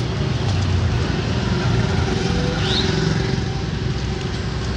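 Steady street traffic: motor vehicles running past on the road.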